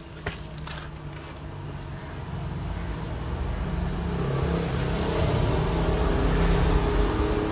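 A car engine running and growing steadily louder, with a couple of sharp clicks in the first second.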